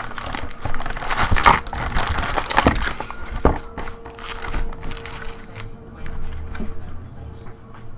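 Trading-card pack wrappers crinkling and crackling as they are handled, torn open and crumpled, busiest over the first three seconds and then scattered and lighter.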